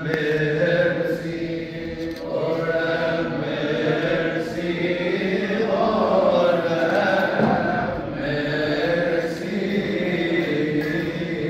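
Coptic Orthodox liturgical chant: voices hold long drawn-out notes that wind slowly up and down, growing fuller and louder about halfway through.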